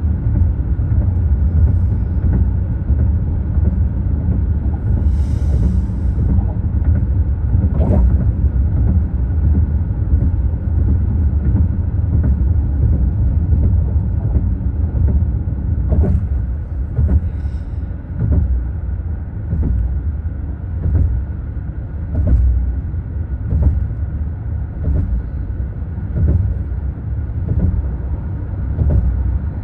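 Steady low road rumble and tyre noise heard inside the cabin of a car moving at highway speed, with a few short knocks and a brief hiss along the way.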